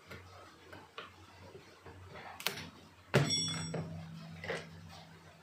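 Car instrument-cluster gauge needle being pried off its spindle with a metal two-pronged needle puller: a few light clicks, then a sharp metallic snap about three seconds in that rings on for a second or two as the needle comes free.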